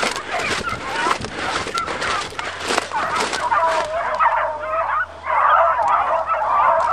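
A pack of beagles baying in full cry, many hound voices overlapping without a break and growing louder and denser from about five seconds in. Short rustling noises run under it for the first few seconds.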